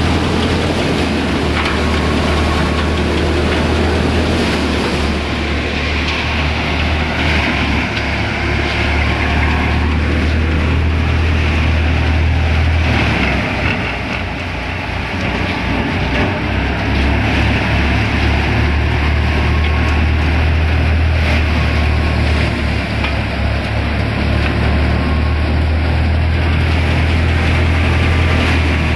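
Paddy thresher running steadily under power, a continuous machine drone with a strong low hum. The hum weakens briefly about halfway through, then comes back.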